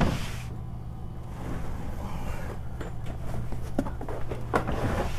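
Scattered knocks and light rustling as a carpet runner is handled against wooden stair treads, with a sharper knock at the start and another at the end, over a steady low hum.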